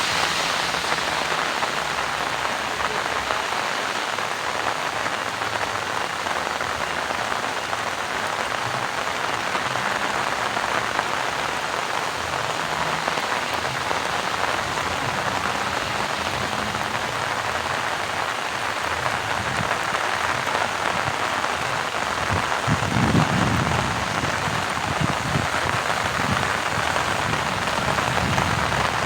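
Steady rain falling on rice paddies, an even hiss of drops, with a low rumble swelling briefly a little over three-quarters of the way in.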